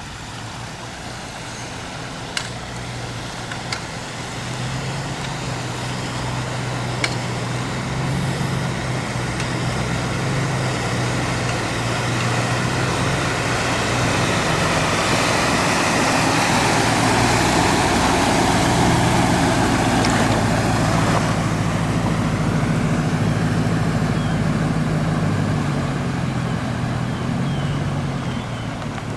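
A motor vehicle's engine running steadily, with a rushing noise that swells to a peak past the middle and then eases off.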